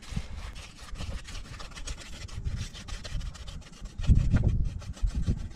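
Paintbrush scrubbing roof paint onto rough roof tiles and filler foam in repeated short strokes, with a brief low rumble about four seconds in.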